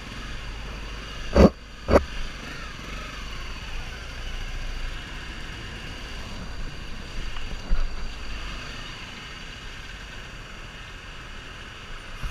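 Motorcycle riding in traffic, heard through a helmet-mounted camera: steady engine rumble and wind noise, with two sharp knocks about a second and a half and two seconds in.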